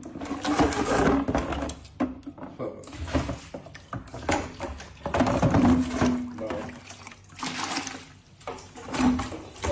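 Water pouring and splashing into a plastic bucket from a household tap, in uneven surges, with a hand sloshing in the water.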